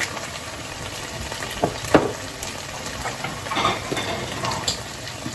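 Minced-beef kofta sizzling in a frying pan, cooking in its own fat with no oil added, with a few sharp clicks of utensils or a spice grinder.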